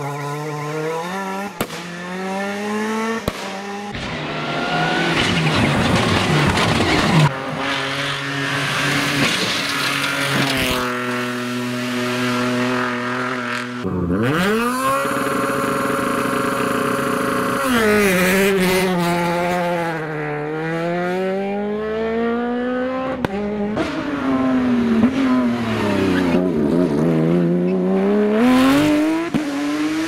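Rally cars taken one after another through a tight tarmac bend, their engines revving up and falling back through the gears, with tires squealing. About halfway through, one engine holds a steady high rev for a few seconds.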